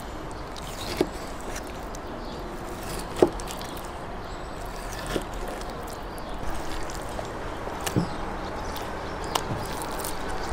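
Chef's knife cutting through raw liver and knocking down onto a plastic cutting board: about five short, sharp knocks a second or two apart, over a steady outdoor hiss.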